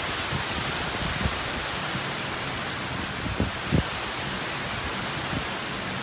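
Strong typhoon wind thrashing trees and palms: a steady loud hiss, with two low thuds of gusts hitting the microphone about three and a half seconds in.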